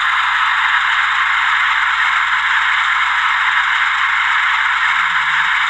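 HO-scale GE U36C diesel locomotive model running on the track, its onboard sound system giving a steady diesel engine rumble through its small speaker.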